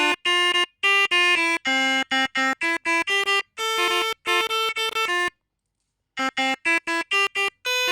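Melodica (pianika) playing a telolet bus-horn tune in quick runs of short notes. The notes break off for about a second past the middle, then a last run ends on a slightly longer note.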